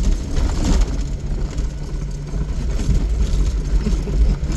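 Vehicle engine running steadily with a low rumble, heard from inside the cab while driving a muddy off-road trail.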